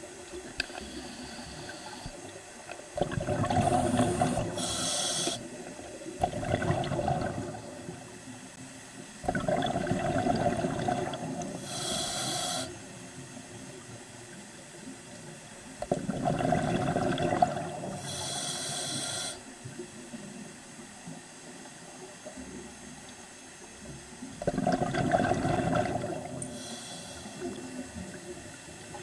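Scuba regulator breathing underwater: about four breaths, several seconds apart. Each is a rush of exhaled bubbles with a hiss of air through the regulator, with a quieter steady background between them.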